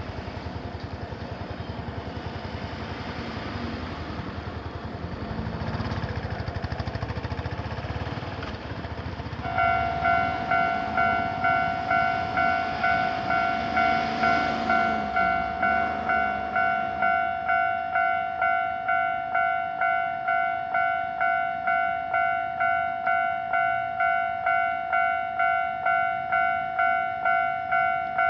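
Passing traffic noise, then about a third of the way in a Japanese level crossing's electronic warning bell starts, ringing an even ding repeated nearly twice a second: the signal that a train is approaching and the barriers are coming down. The traffic noise fades out a few seconds after the bell begins.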